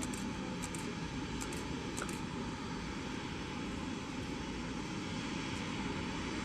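Airbus A350's jet engines running: a steady rushing noise.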